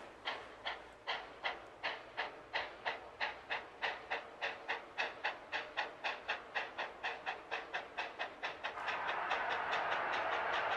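Steam locomotive WW&F #9, a two-foot-gauge Forney tank engine, working out of sight with a steady beat of exhaust chuffs that quicken as it gathers speed. Near the end the chuffs give way to a steady hiss.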